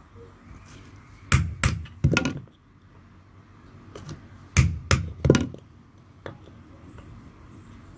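Two quick series of three hammer blows on the end of a wooden-handled steel chisel standing on an iron anvil, seating the handle onto the chisel's tang; a fainter knock comes between and after the series.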